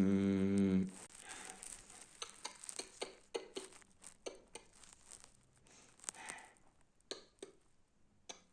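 Ferrari 488's twin-turbo V8 held at steady revs, cutting off about a second in, followed by scattered light crackles and ticks.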